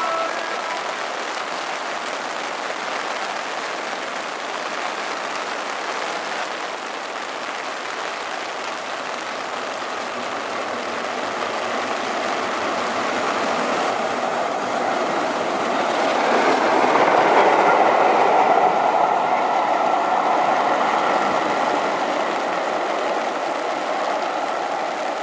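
LNER Peppercorn A1 class 4-6-2 steam locomotive Tornado running through at speed, heard over steady heavy rain. Its noise grows as it approaches, peaks about two-thirds of the way through as it passes, then falls away.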